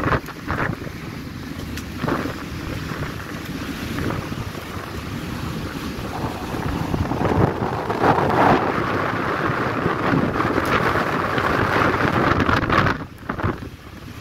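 Gale-force wind buffeting the microphone on a ferry's open deck, coming in gusts. It is strongest in the second half and drops away sharply near the end.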